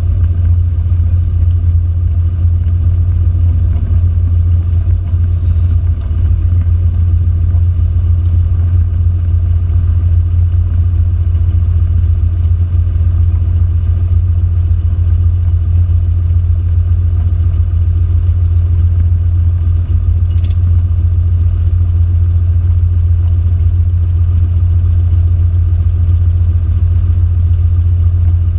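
Cessna 172's piston engine and propeller running steadily, a constant low drone heard from inside the cockpit.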